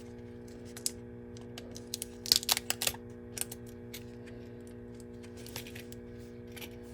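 Scattered small clicks and light taps of a Zippo lighter and its replacement flints being handled, busiest about two to three seconds in, over a steady low electrical hum.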